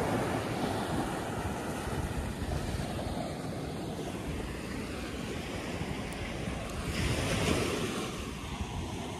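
Ocean surf washing onto a sandy beach in a steady rush, swelling near the start and again about seven seconds in, with wind buffeting the microphone.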